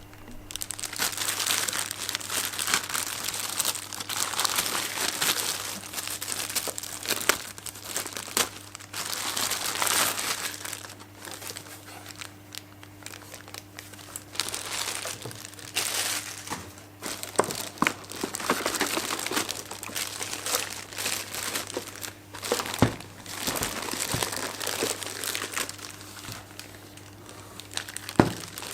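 Packaging crinkling and rustling in irregular bursts while a boxed robot vacuum is unpacked, with a few sharp knocks.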